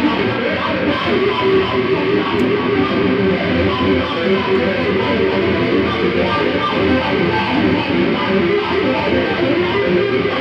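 Electric guitar played without a break, a continuous stream of notes and strummed chords.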